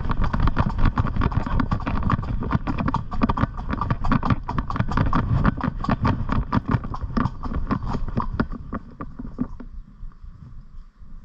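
Pony's hooves clip-clopping in a quick, steady run of hoofbeats over a low rumble. The hoofbeats thin out and stop about nine seconds in.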